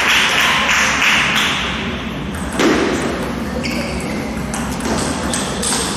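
Sports-hall ambience at a table tennis tournament: celluloid-type table tennis balls clicking off bats and tables at neighbouring courts, scattered short taps over a steady wash of hall noise.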